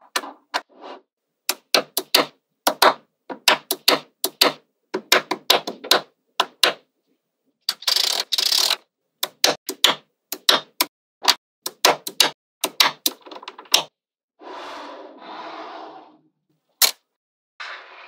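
Small magnetic balls snapping together one after another in sharp, irregular clicks, with a quick clattering run of clicks about eight seconds in. Near the end come two longer stretches of rustling clatter of the balls being moved together.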